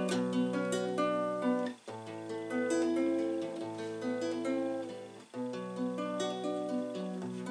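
Classical guitar played fingerstyle: picked chord notes over ringing bass notes, with two short breaks between chords about two and five seconds in.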